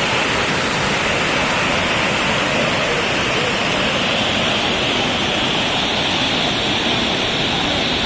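Steady, loud rush of a waterfall, water cascading over rock steps and through rapids.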